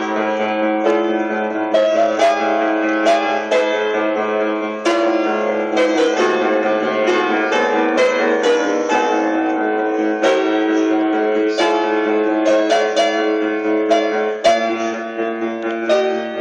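Solo piano music, a steady flow of struck notes over held lower notes.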